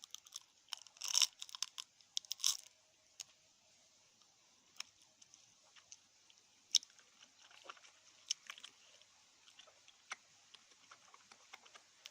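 Close-up mouth sounds of a person biting and chewing a Juzt Jelly chocolate bar. A cluster of louder crackly crunches comes in the first three seconds, then quieter scattered clicks of chewing.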